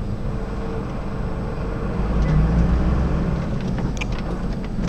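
Delivery truck's diesel engine running, heard from inside the cab as a steady low rumble that swells about two seconds in as the truck pulls forward in slow traffic. A few light clicks come near the end.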